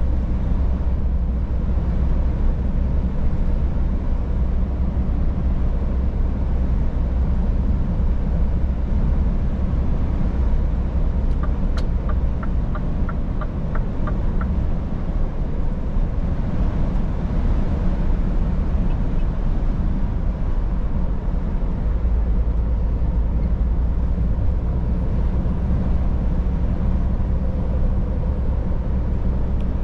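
Scania S500 truck's 13-litre straight-six diesel running steadily under way, a deep, even drone. Near the middle a short run of about nine light ticks comes at about three a second.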